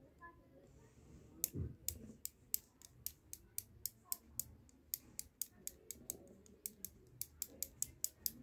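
A paintbrush tapped again and again to flick specks of white paint onto black paper, making sharp clicks at about three to four a second that begin about a second and a half in.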